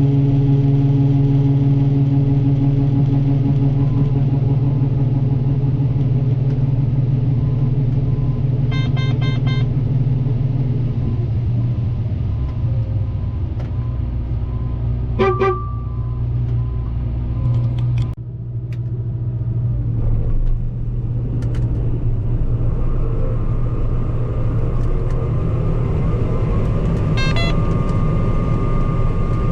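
Combine harvester's engine running steadily under load. Its note shifts about a third of the way in and dips briefly a little past halfway. A higher steady whine joins for the last few seconds, along with a few short clicks.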